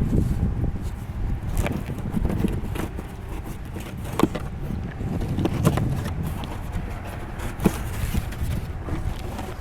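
A cardboard rifle box being handled and opened: a few scattered knocks and scrapes over a low rumble.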